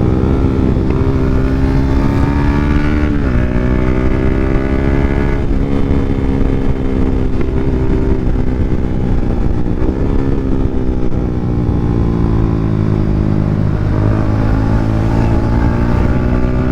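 Yamaha Sniper 150 single-cylinder four-stroke engine being ridden through an open EXOS R6 exhaust with no silencer. The engine note climbs steadily and drops sharply with gear changes about three seconds in and again about ten seconds in. It then falls away slowly and climbs again near the end.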